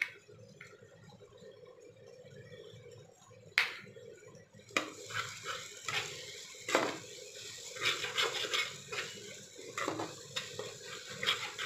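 Flat metal spatula scraping and knocking against a pan while stirring ground spices into frying onions. After a quiet start and a single sharp knock about three and a half seconds in, repeated scraping strokes follow from about five seconds on.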